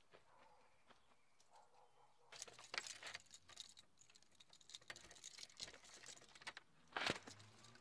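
Keys jangling and scraping at a front door's lock and handle: a run of small metallic clicks and rattles starting a couple of seconds in, with a louder clack about seven seconds in.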